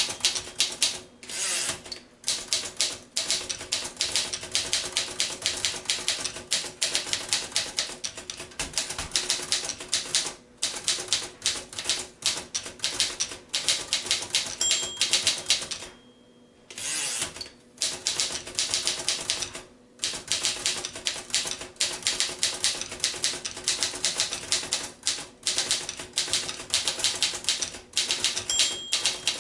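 1940 Royal Varsity manual portable typewriter being typed on: fast runs of typebar strikes with short breaks between them. A short bell ding comes twice, near the middle and near the end.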